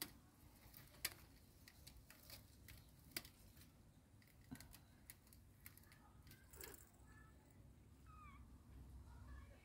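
Faint scratching and light clicks of Ragdoll kittens playing in a nylon play tunnel and batting a hanging plastic ball toy, with a few short, faint high chirps near the end.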